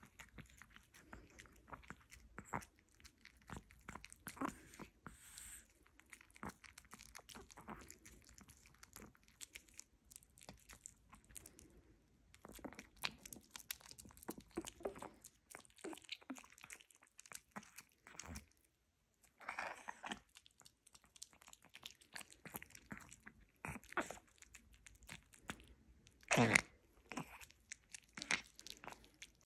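Small Pomeranian dog chewing and crunching a small treat taken from a hand, in quick irregular clicks and mouth noises, with a brief louder knock near the end.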